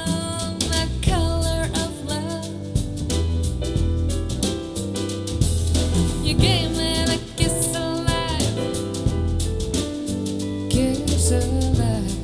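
Soul jazz track with drum kit, bass and a wavering melody line, played back through in-ear monitors for a sound comparison.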